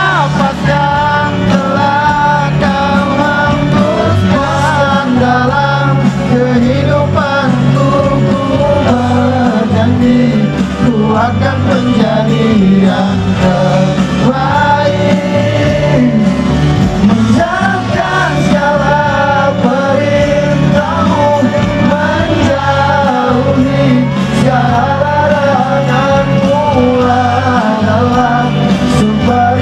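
A man singing live into a microphone over accompanying music with a steady bass line, amplified through the stage sound system.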